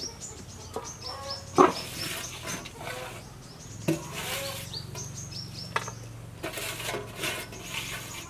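Aluminium cooking pot and lid knocking and clanking as chicken pieces go into the pot, a few sharp knocks with the loudest about one and a half seconds in. Behind it a bird chirps over and over in quick, high, falling notes.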